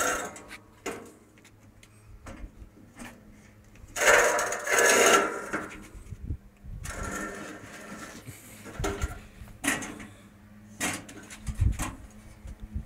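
Metal scraping and clanking as a thin metal rod is dragged and knocked against a stainless steel barbecue grill. There is one loud scrape about four seconds in, a weaker one around seven seconds, and scattered light clicks and knocks in between.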